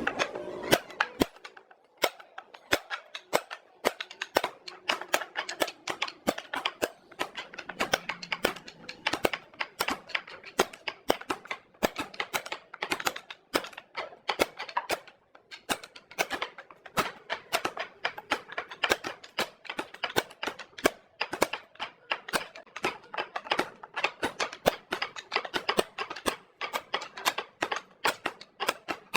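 A quick, irregular run of sharp taps and knocks, several a second, sparse at first and then nearly continuous with brief lulls.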